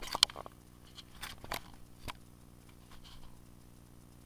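A few sharp clicks and crunchy knocks close to the microphone, the loudest right at the start and a few more over the next two seconds: handling noise in a small aluminium boat while an angler plays a hooked bass on rod and reel.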